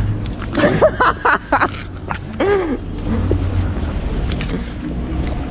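A few short vocal sounds in the first half, over a steady low rumble of wind on the microphone and street traffic.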